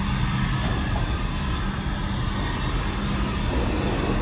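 New York City subway train pulling into an underground station, a steady low rumble of motors and wheels on the rails.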